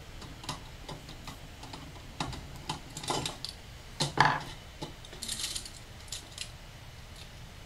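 Scattered light clicks and metal clinks of small stove parts being handled as the frame and burner assembly of a 1946 Coleman 530 stove are lifted off the fuel tank and its small screws taken out. About four seconds in there is a louder clink with a brief ring, and soon after a short rattle.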